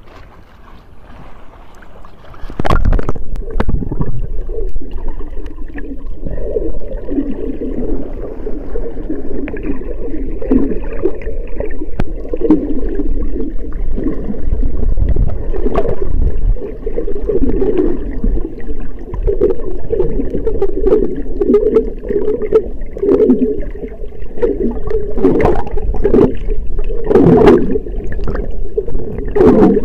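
Sea water heard by a camera at the surface and then held underwater: faint small waves at first, then about two and a half seconds in a sudden change to a loud, muffled sloshing and gurgling rumble with scattered clicks and knocks.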